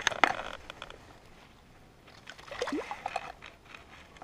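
Water splashing and sloshing as a pike is lowered into the shallows by hand and released, in two short bouts: one at the start and another about two to three seconds in.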